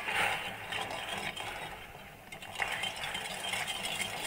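Sugar and water being stirred in a metal kadai at the start of making caramel, the utensil scraping and clinking against the bottom of the pan in quick strokes, with a short lull about two seconds in.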